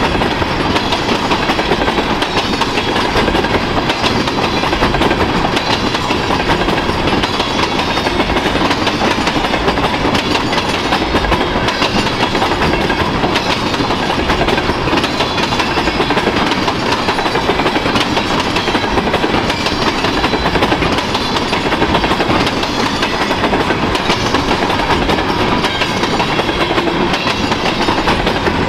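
Freight train of tank cars rolling past close by: a steady rolling noise of steel wheels on rail, with repeated clicks and clacks from the passing cars.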